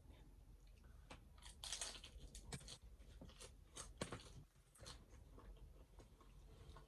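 Crunching and chewing on a hard-shell taco: a run of crisp crunches, loudest about two seconds and four seconds in.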